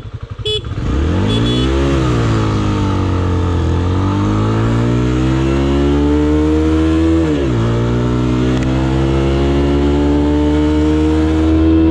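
Vento Hyper 280 motorcycle accelerating hard from a standing start. The engine revs climb, then drop at an upshift about two seconds in and another about seven seconds in, climbing again after each. Wind rushes past the bike throughout.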